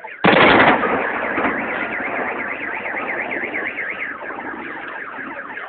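A fireworks salute shell bursts with a sudden loud bang about a quarter second in, the rumble dying away over the next few seconds. Under it a car alarm wails in a fast, repeating up-and-down warble.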